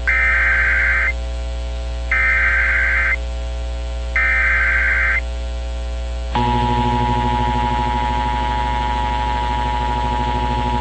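Emergency Alert System activation: three SAME header data bursts, each a harsh digital warble about a second long and spaced about two seconds apart, encoding a severe thunderstorm warning. About six seconds in, the steady two-tone EAS attention signal starts, the signal that a spoken alert follows. A low hum runs under it all.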